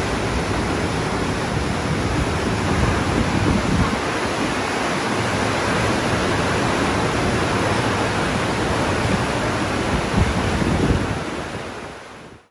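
Churning water of a cruise ship's wake: a steady rush of noise, with wind buffeting the microphone in gusts now and then. It fades out near the end.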